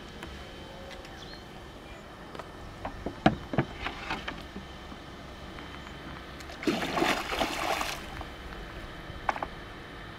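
Water sloshing with scattered knocks, and a louder rush of noise lasting about a second, about seven seconds in.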